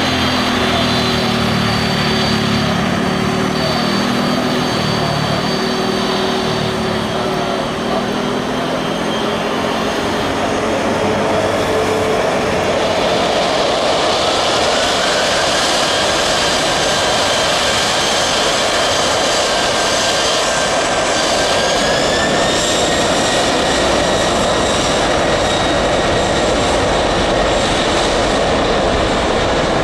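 Boeing 747 freighter's jet engines running loud with a steady roar, their whine rising about halfway through and stepping higher again later as the engines spool up for the takeoff.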